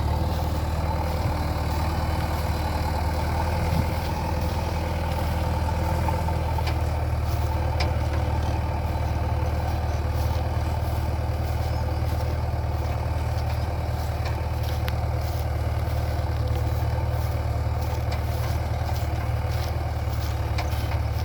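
JCB 3DX backhoe loader's diesel engine running steadily with a low, even hum.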